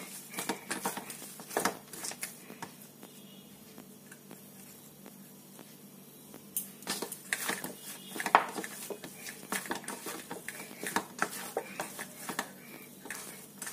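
Soft, oiled maida dough being kneaded and pressed by hand in a stainless steel bowl, with short knocks and clinks of the steel bowl. It goes quieter for a few seconds in the middle, then the knocks pick up again.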